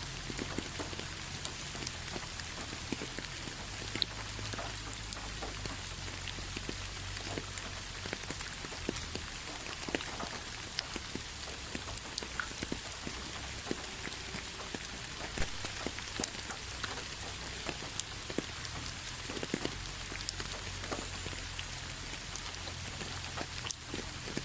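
Steady rain falling in a rainforest, a continuous hiss with many scattered individual drops ticking close by.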